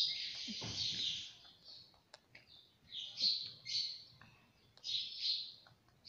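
Indian ringneck parakeet chattering softly in short raspy bursts with pauses between them, and a few faint clicks.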